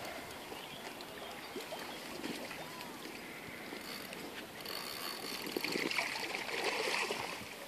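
Lakeshore water and wind noise, rising to a louder rushing stretch from about five to seven seconds in.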